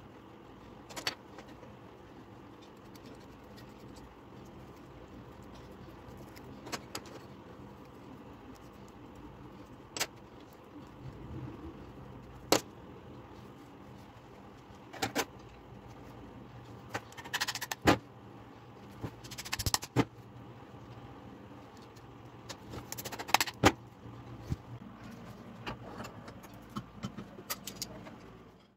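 Scattered clicks and short metallic clatters of a knife blade, handle scales and small metal pins being handled and set down on a metal workbench, over a faint steady hum.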